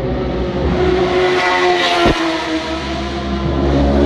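Racing superbike engine at high revs passing by at speed about two seconds in, its pitch dropping sharply as it goes past. Another bike's engine is heard approaching near the end.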